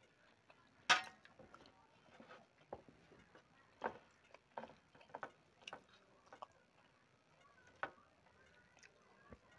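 Sparse small clicks and taps of fingers mixing rice and food on a steel plate, with a sharper clink about a second in.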